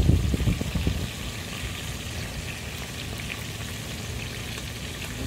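Food deep-frying in a pot of hot oil on a portable gas stove: a steady crackling sizzle. Low rumbling sits under it in the first second.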